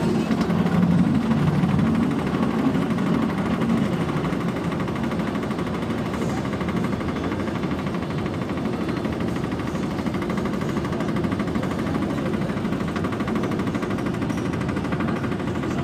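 Inverted roller coaster train climbing its chain lift hill: a steady mechanical rumble with a fast rattling clatter.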